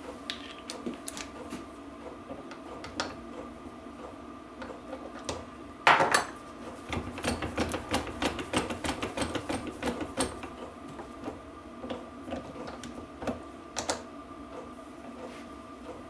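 Metal clicks and clatter from a bearing puller being wound onto a differential crown wheel to draw off its bearing. There is a louder knock about six seconds in, then a run of quick, even clicks for a few seconds.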